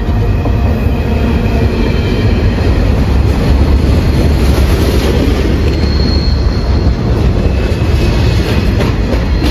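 Container freight train rolling past close by: steady rumble and clatter of steel wheels on the rails and the well cars, with faint high wheel squeals now and then, one about six seconds in.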